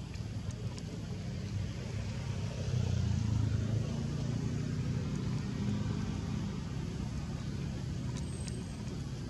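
Low engine rumble of a motor vehicle passing on the road, swelling about three seconds in and slowly fading.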